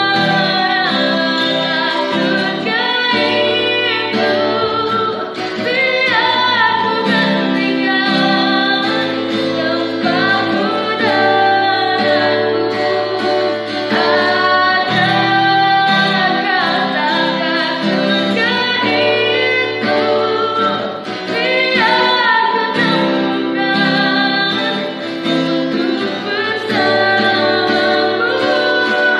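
A female voice singing a song with guitar accompaniment.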